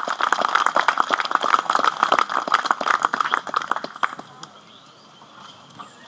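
Audience applause: many hands clapping, which dies away about four seconds in.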